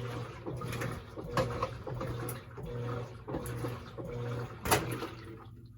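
Top-loading washing machine running, with water sloshing, a low motor hum that starts and stops in short pulses, and a few sharp knocks, the loudest near the end. It is a really weird noise that the owner wonders may come from a Downy fabric-softener ball in the drum.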